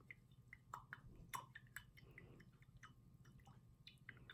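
Paintbrushes swirled in a glass jar of rinse water: faint, irregular small clicks and splashes as the brushes knock against the jar.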